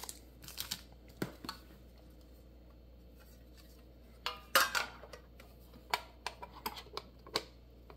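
Handling a shrink-wrapped metal pencil tin and foil booster packs: scattered light clicks and taps, with a louder burst of crinkling plastic wrap about four and a half seconds in.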